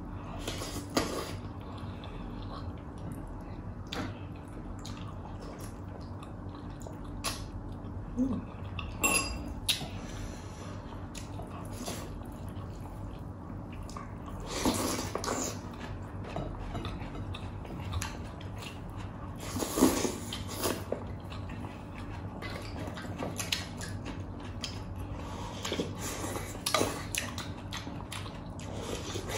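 Close-miked eating sounds of two people eating pork hock and rice by hand: chewing and mouth noises with scattered clinks of spoons on plates. A steady low hum runs underneath.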